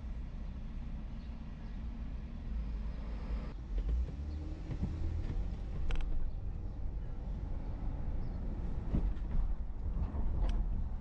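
Car driving on city streets, heard from inside the cabin: a steady low rumble of engine and tyres, with two sharp clicks, one about halfway through and one near the end.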